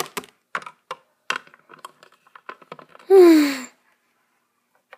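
Plastic Littlest Pet Shop figure tapped on a hard floor as it is hopped along, giving sharp, irregular clicks. About three seconds in, a voice gives a short sigh that falls in pitch as the figure settles into the toy bathtub.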